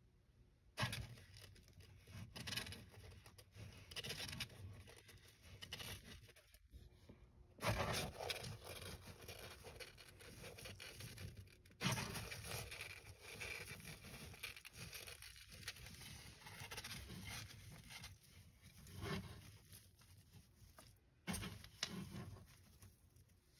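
Savanna monitor tugging at a hornworm held in plastic feeding tongs: irregular faint scraping and rustling as it pulls and shifts in the bark substrate, with a few sharp knocks.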